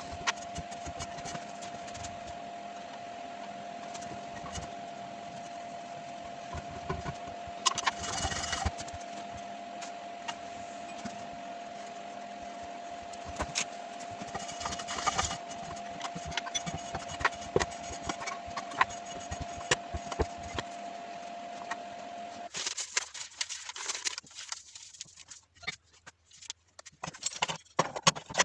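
A small electric motor runs at a steady pitch with a hiss for about 22 seconds, with light clicks over it, then cuts off suddenly. After that come irregular knocks and clatter of parts being handled.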